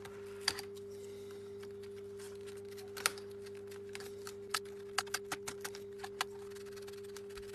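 Scattered sharp plastic clicks and snaps as a plastic pry pick works the laptop's screen bezel loose from its clips and double-sided tape, several in quick succession about five seconds in. A steady low hum runs underneath.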